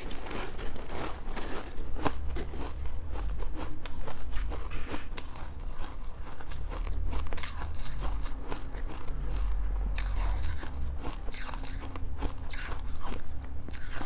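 Close-up biting and crunching of ice, a dense run of sharp, irregular crunches.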